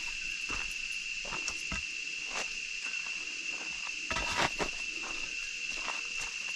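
A steady, high-pitched insect drone, with footsteps on a trail, irregular and a step or two a second. There is a louder scuffle of steps about four seconds in.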